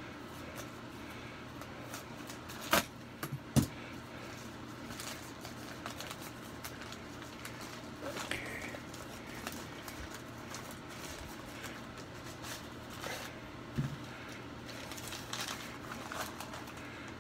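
Paper mailer envelope being cut open with a knife, then paper wrapping crinkling and rustling as it is handled and unwrapped. A few sharp clicks stand out, two close together about three seconds in and another near the end.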